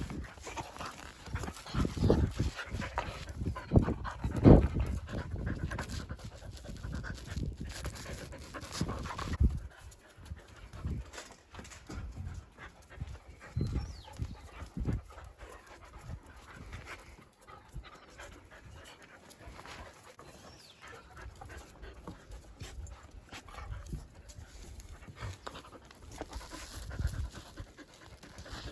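Dogs panting, with many short thumps and knocks, loudest and most frequent in roughly the first ten seconds.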